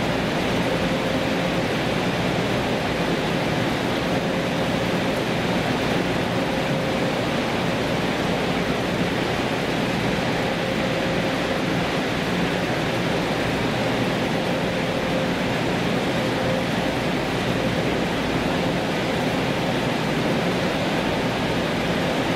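Steady rushing mechanical noise with a faint constant hum, unchanging throughout: the running engine and propeller wash of a small coastal cargo ship manoeuvring alongside a quay, mixed with the drone of quayside plant machinery.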